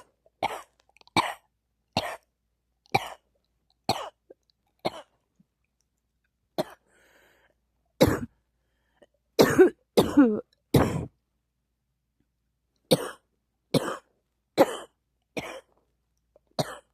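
A person coughing repeatedly in short single coughs, at first about one a second. After a short pause comes a louder run of coughs close together about halfway through, then more single coughs spaced about a second apart.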